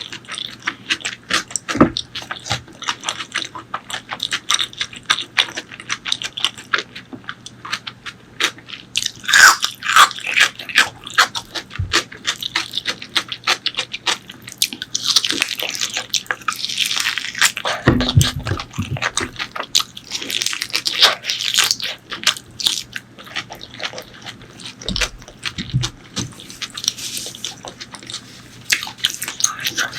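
Close-miked eating sounds of spicy pork leg curry with rice: rapid wet chewing and lip smacking, with louder bursts of crunching and slurping now and then.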